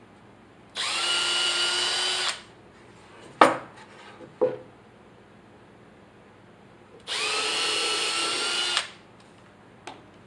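Cordless drill boring two holes through a wooden box lid: two runs of about a second and a half each, the motor whine rising as it spins up and then holding steady. A couple of sharp knocks fall between the two runs.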